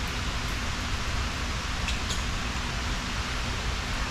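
Steady background hiss, even across the range, with a few faint clicks.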